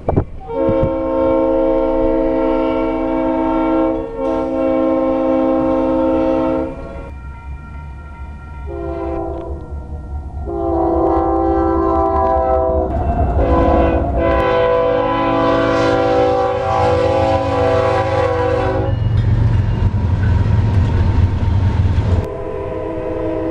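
Diesel locomotive air horns sounding several blasts, each a steady multi-note chord: a long one at the start, a short one, then a long stretch, and another near the end. A low rumble of the passing locomotive and train lies under the middle and later blasts.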